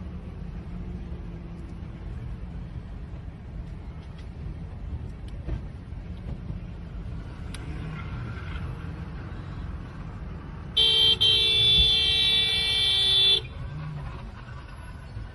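A car horn sounding one long honk of about two and a half seconds, starting about eleven seconds in, over the low steady rumble of a car's engine and road noise heard from inside the car.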